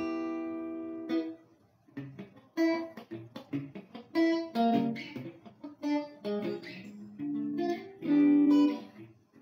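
Background music played on a plucked guitar: a chord rings out and fades in the first second, then single notes are picked in a light melody.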